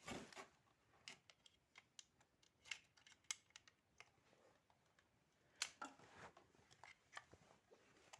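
Faint, irregular clicks and taps with brief rustling as small plastic toy pieces are handled.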